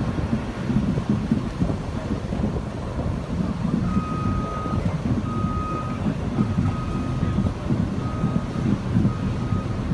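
Wind buffeting the microphone: a heavy, uneven low rumble. From about four seconds in, a single-pitch electronic beep repeats about six times, each beep under a second long, with uneven gaps.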